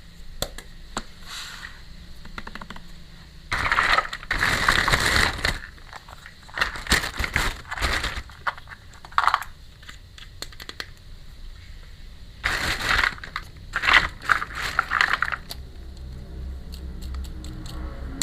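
Packaging being handled during an unboxing: crinkling and rustling in several bursts, the longest about four seconds in and again past the middle, with scattered light clicks between them.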